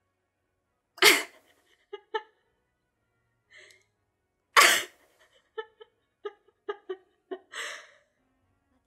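A person laughing: two loud, sharp bursts of breath about three and a half seconds apart, each followed by short chuckling syllables, and a breathy laugh near the end.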